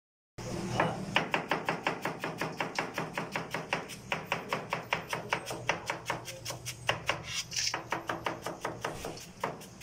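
Chef's knife rapidly shredding cabbage on a plastic cutting board: a fast, even run of chopping knocks, about six a second, over a steady low hum.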